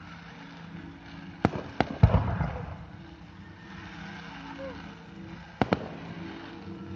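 Aerial firework shells bursting: a quick run of three sharp bangs about one and a half to two seconds in, the last and loudest followed by a rumbling echo, then two more bangs close together near the end.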